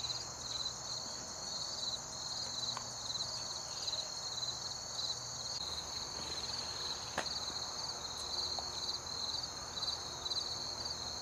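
Insects chirping outdoors in a steady, high-pitched pulsing trill, with a thinner steady drone above it. A single faint click about seven seconds in.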